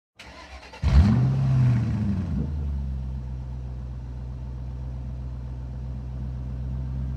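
An engine revs up sharply about a second in, its pitch falling back over the next second or so into a steady, even idle.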